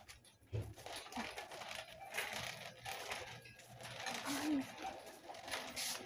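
Quiet, irregular rustling and crinkling handling noise from a handheld phone being carried while walking. A faint, brief voice is heard about four and a half seconds in.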